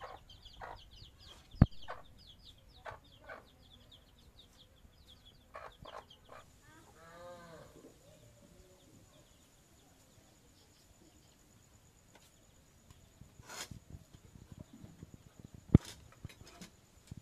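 Farmyard animals: chickens clucking among fast, high chirping, with one longer pitched animal call about seven seconds in. Sharp knocks break in a few times, the loudest near the end.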